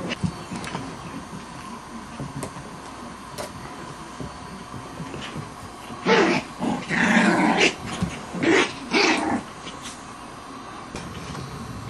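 Six-week-old Pomeranian puppies playing and giving voice, with a cluster of about four short, loud calls a little past halfway.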